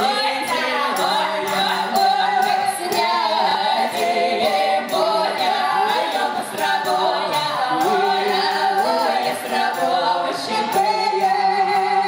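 A folk ensemble of mostly women's voices sings a lively Don Cossack dance song in several parts, over a steady percussive beat.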